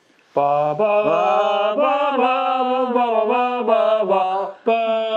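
A man's voice singing a wordless, chant-like melody with no instruments. It breaks off briefly about four and a half seconds in, then holds a long note.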